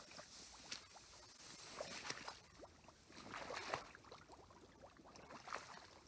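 Faint, irregular sloshing and splashing of someone wading through creek water and mud in waders, a swish every second or two with a few small clicks.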